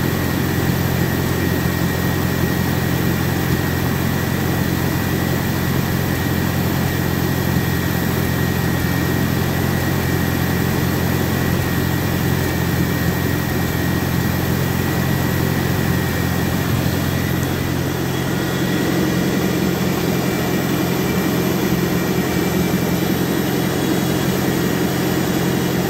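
1953 Farmall Cub's four-cylinder flathead engine idling steadily, turning its belt-driven generator while the regulator holds the charging voltage.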